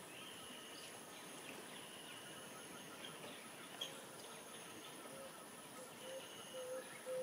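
Congo rainforest ambience: a steady high insect buzz and trilling, with scattered bird chirps. About four seconds in, a run of short low hooting notes begins and grows louder toward the end.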